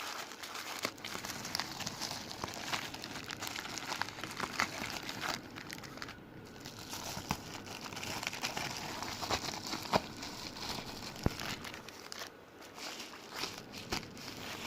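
Plastic packaging crinkling and rustling as it is handled and pulled open, with many small sharp crackles and two brief lulls.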